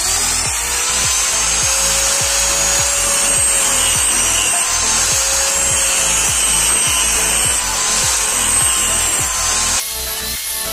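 Handheld angle grinder with an abrasive disc grinding the edge of a steel knife blade cut from a motorcycle brake disc: the motor spins up at the start, then a steady grinding hiss with a faint whine, cutting off sharply about a second before the end.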